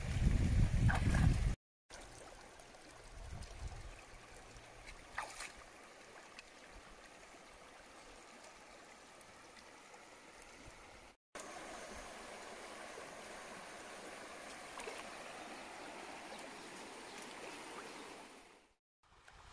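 Shallow river running over stones, a steady rushing and trickling. A low rumble sits under it in the first second and a half. The sound drops out briefly three times.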